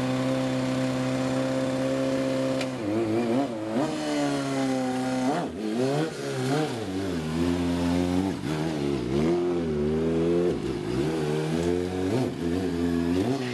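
2010 Kawasaki ZX-6R inline-four engine, which has a rod knock, idling steadily and then revved up and down repeatedly with quick throttle blips before settling back to idle near the end.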